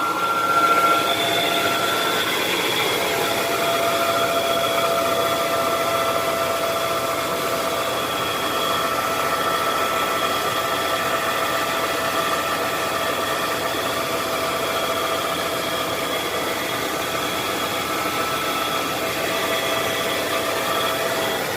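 Hyundai Genesis differential humming: a steady whining hum with several held tones over the car's running noise, the noise the mechanic identifies as coming from the differential.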